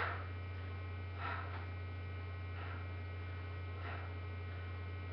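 Steady low electrical mains hum, with faint breathy puffs about every 1.3 seconds: exhalations on each toe-touch crunch.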